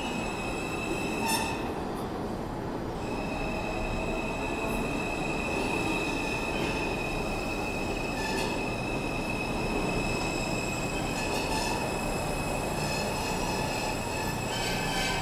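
G subway train pulling into the station and slowing along the platform: steady running noise with a sharp click about a second in, then a steady high-pitched squeal from about three seconds in.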